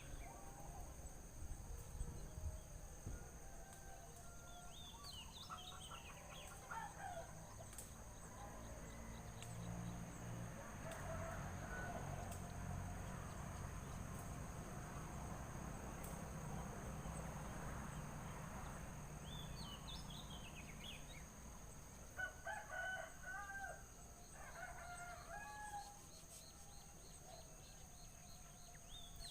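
Outdoor bird calls. Twice there is a quick falling run of high notes, and in the last few seconds come several louder, lower calls. A low rushing noise swells in the middle.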